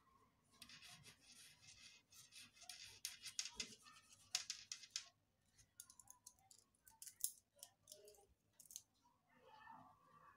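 An orange oil pastel scribbled quickly back and forth on paper to fill in colour: a dense run of scratchy strokes for the first few seconds. This thins to a scattering of separate scratches and light ticks later on.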